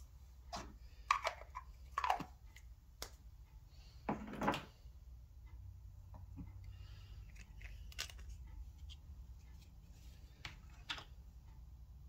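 Slime being handled and pressed into a metal muffin tin cup: a cluster of short squishes and sticky clicks in the first five seconds, the longest and loudest about four seconds in, then a few faint clicks.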